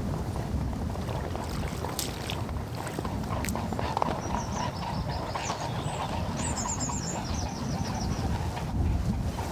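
Wind buffeting the microphone with a steady low rumble. A small bird calls in a quick run of short high chirps for about three seconds midway, and there are a couple of sharp clicks a little before it.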